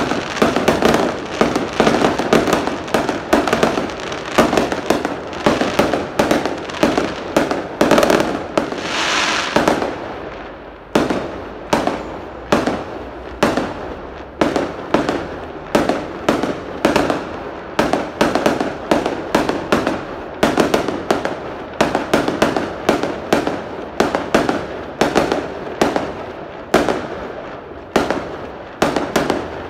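Aerial fireworks bursting overhead: a rapid, continuous run of sharp bangs and crackles, several a second, with a short lull about ten seconds in.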